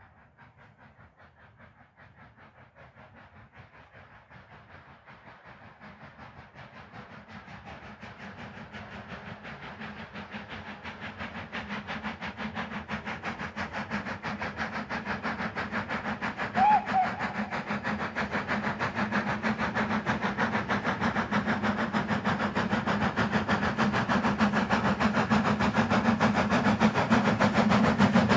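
Midland 4F 0-6-0 steam locomotive approaching under power, its rapid exhaust beats growing steadily from faint to loud as it nears. A brief pitched sound cuts in a little over halfway.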